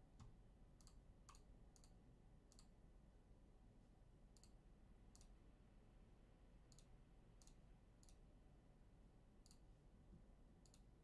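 Near silence: room tone with faint, irregular clicks every half-second to second or so.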